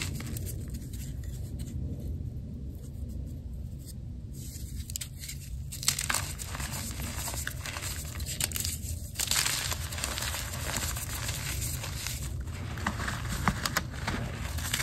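Hands squeezing and crushing green reformed gym chalk in loose chalk powder: soft powdery squishing at first, then from about six seconds in a dense run of crisp crunching and crackling as the chalk breaks up.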